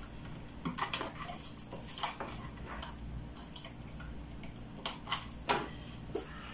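Scattered small clicks and light knocks of a heater fan motor and its plastic wire connectors being handled and fitted onto a washer-dryer's heater duct.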